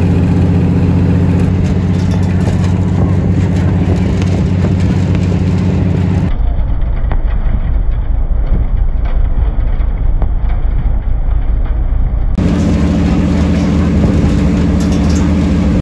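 Diesel train engine running with a steady droning pitch. About six seconds in, the drone gives way to a low rumble, and the drone returns about six seconds later.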